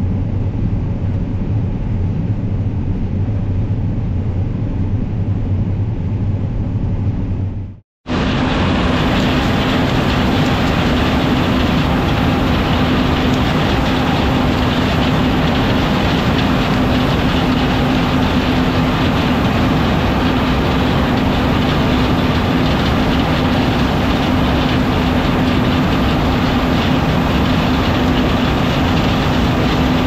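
John Deere S680 combine harvesting corn: a steady mechanical din with a low hum from the header. About eight seconds in, a brief break gives way to a hissier, steady rush with a constant hum, heard close to the combine's drive wheel as it rolls through the stubble.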